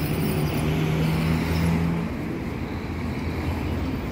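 City street traffic: a motor vehicle's engine hums steadily for about the first two seconds and then drops away, leaving a steady wash of road noise.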